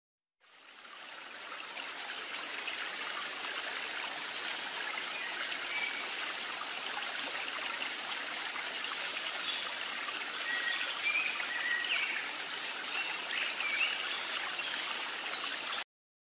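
Steady trickling, stream-like running water that fades in over the first second or two and cuts off suddenly near the end.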